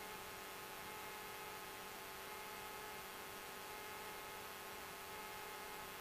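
Faint steady hiss and electrical hum with a few constant whining tones: the background noise of a light aircraft's cockpit radio audio feed between transmissions.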